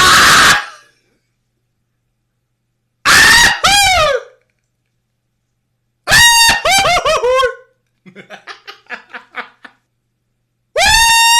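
A person making cartoon-style screams as homemade sound effects: loud, very high-pitched shrieks in separate bursts with silence between, the later ones falling in pitch at the end. A quieter run of short rapid yelps comes about two-thirds of the way in.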